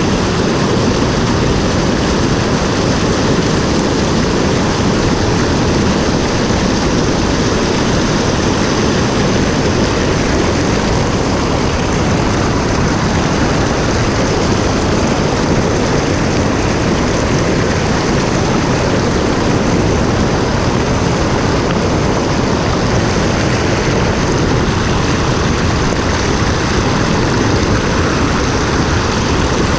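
Steady rushing of a mountain stream: a constant, loud wash of water noise, heaviest in the low range, that cuts off at the end.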